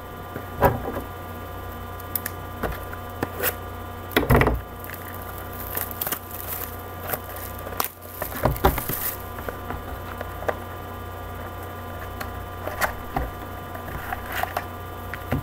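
A sealed cardboard box of hockey trading cards being opened and its packs pulled out by hand: scattered crinkles, taps and knocks, with two louder knocks about half a second and four seconds in, over a steady low electrical hum.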